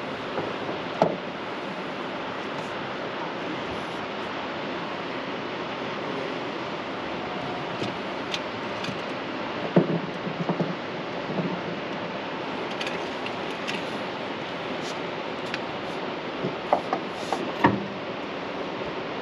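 Steady rush of wind and river water, broken by a few scattered knocks and clicks of fishing gear being handled on the boat.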